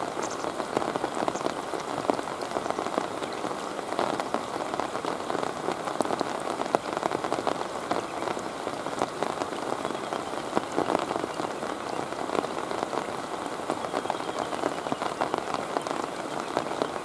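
Steady rain falling on the river's surface: a dense, even hiss made of countless small drop impacts.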